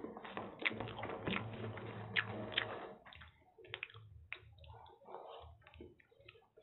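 Close-miked eating sounds: fingers squelching through soft, oily chow mein noodles on a steel plate, with wet clicks, and a handful of noodles taken into the mouth and chewed. The sound is busiest in the first half.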